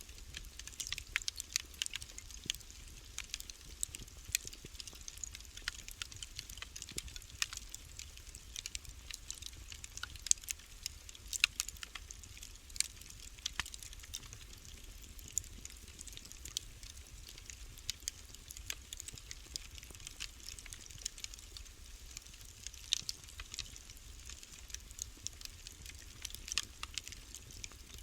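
Wood fire burning in a fireplace, crackling with frequent sharp pops and snaps over a low steady rumble. A few louder pops come near the middle.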